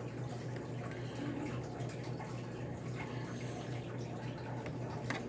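Steady low electrical hum with background hiss, broken by a few faint small clicks and a sharper click near the end, as of small parts being handled.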